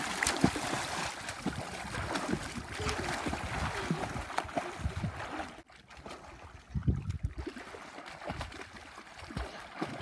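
Water splashing and sloshing as children swim, kicking and paddling through a lake, in irregular splashes with a brief lull a little past halfway.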